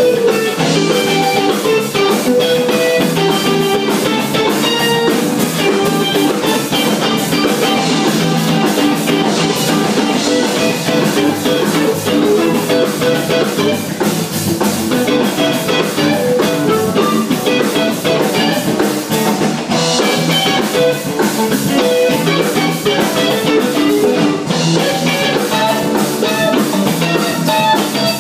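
Live jam-session music led by guitar, with drum kit and bass underneath.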